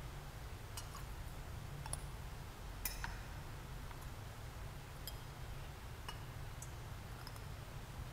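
Faint, scattered clinks and clicks of altar vessels (chalice, cruets, paten) being handled on the altar while the wine is prepared at the offertory, over a steady low hum of the church's sound system.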